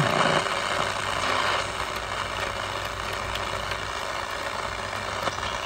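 Sharp QT70 radio-cassette's speaker giving a steady static hiss on a band with weak reception, a little louder in the first second and a half.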